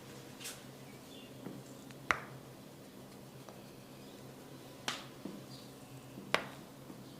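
Sharp snapping cracks from a barber's head massage: four distinct snaps a second or two apart, the loudest about two seconds in, with a few fainter clicks between them.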